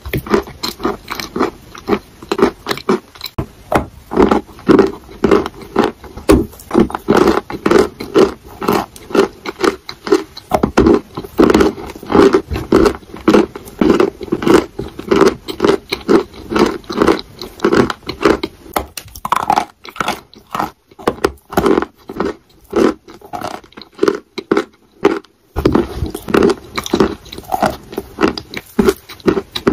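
Close-miked chewing of chalk: a steady run of wet, pasty chews with sharp crunchy clicks. For several seconds past the middle it thins to a few scattered clicks, then the chewing picks up again.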